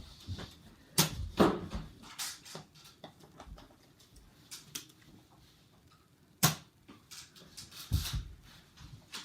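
Scattered sharp knocks and clicks in a small room, with two loud ones about a second in and another about six and a half seconds in.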